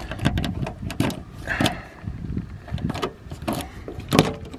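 Keys jingling and rattling on a key ring as they are handled, then a key going into a car's door lock with a sharp click about four seconds in.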